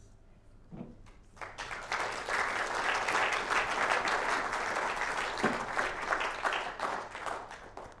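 Audience applauding, starting about a second and a half in and dying away near the end.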